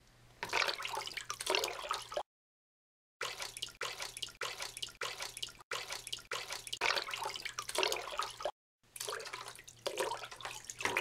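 Water splashing and dripping sound effects, in several edited stretches that cut off abruptly into dead silence.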